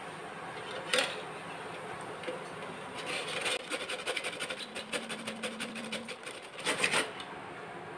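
Peeled bottle gourd being grated on the coarse side of a flat stainless-steel hand grater: one light knock about a second in, then a quick run of rasping strokes from about three seconds in, with a louder scrape near the end.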